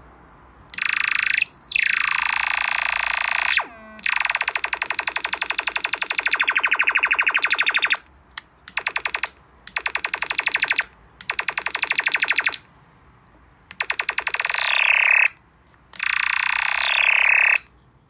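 Homemade ray-gun sound-effects circuit playing electronic laser zaps through a small speaker as its trigger switch is pressed. There are about seven buzzy, rapidly pulsing bursts of a second to four seconds each, most sweeping down in pitch.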